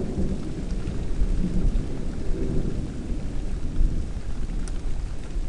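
Thunder rumbling low and unevenly over steady rain.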